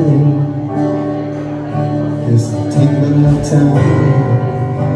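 Live music: an acoustic guitar and a Casio electric keyboard playing a song together.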